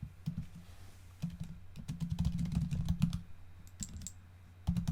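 Computer keyboard typing in two quick runs of keystrokes, a search query being typed in.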